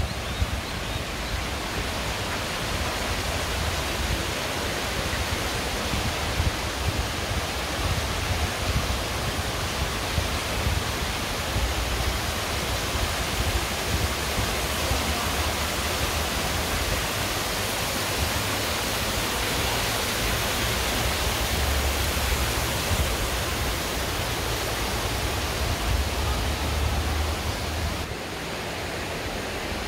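Stream water rushing steadily, with a low rumble underneath.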